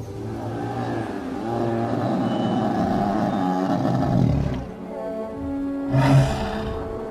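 A dinosaur roar sound effect, a long rough growl of about four seconds, over background music. A short, sharp burst follows near the end.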